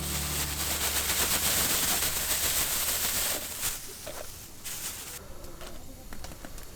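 Wood campfire crackling: a dense crackling hiss for about the first three and a half seconds, then thinning to scattered sharp pops.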